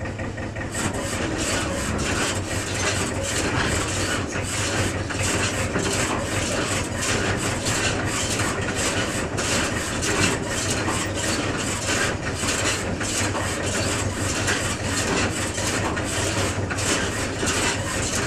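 Tractor engine running, joined about a second in by the continuous rattling clatter of the loader wagon's scraper-floor conveyor, engaged to unload fresh grass out of the back of the wagon.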